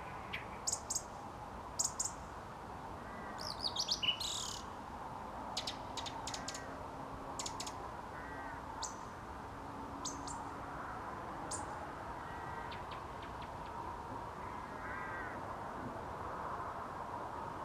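Song thrush singing short, sharp, high-pitched phrases at irregular intervals, with a rapid run of notes about four seconds in, and fainter calls of other birds over a steady background hum.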